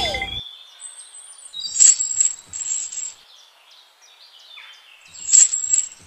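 Bird chirping: thin, high-pitched chirps in two short clusters, about two seconds in and again near the end.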